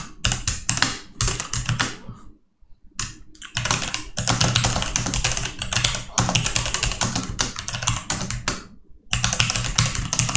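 Fast typing on a computer keyboard: quick runs of key clicks, with short pauses about two seconds in and again about nine seconds in.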